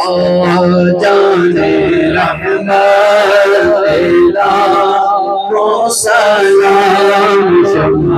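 A man singing Urdu devotional verse (naat/manqabat style) in long, held, ornamented lines, with short breaks for breath.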